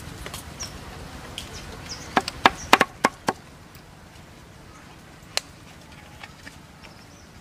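Cleaver chopping on a round wooden chopping block, mincing a crab and prahok paste: a quick run of about six sharp knocks a couple of seconds in, then a single click later.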